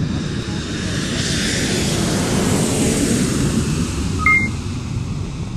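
Jet airliner's engines and airflow heard from inside the cabin during the landing roll: a loud, even rushing noise that swells over the first couple of seconds and then eases a little. A short two-note electronic chime sounds about four seconds in.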